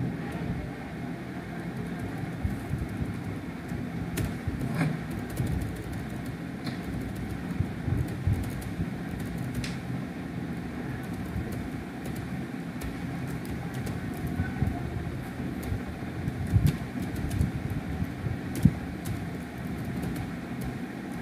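Steady low background hum with a few sharp clicks spread through it, from a computer keyboard and mouse being used.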